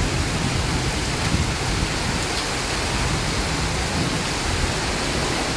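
Heavy rain falling during a flood, a steady loud hiss with no distinct drops or impacts standing out.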